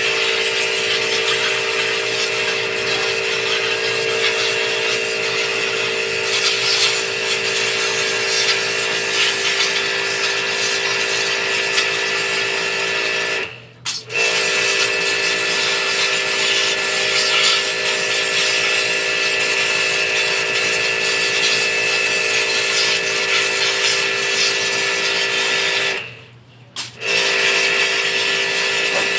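Pressure washer running steadily with its motor and pump, spraying water through the wand. It cuts out twice, briefly about halfway through and for about a second near the end.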